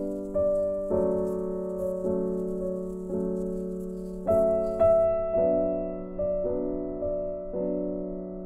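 Background piano music: slow chords struck about once a second, each left to ring and fade.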